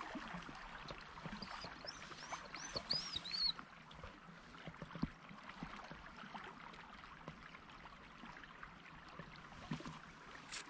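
Faint riverside ambience: a steady low rush of flowing river water and air, with a quick run of high rising-and-falling chirps between about one and three and a half seconds in, and a few faint scattered clicks.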